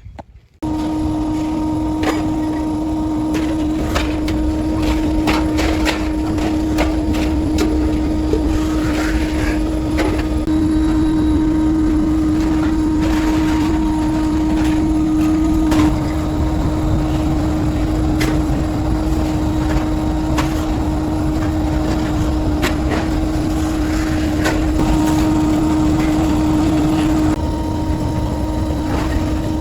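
Workshop machinery running with a steady hum and a constant mid-pitched tone, starting abruptly about half a second in, with scattered knocks and clicks throughout.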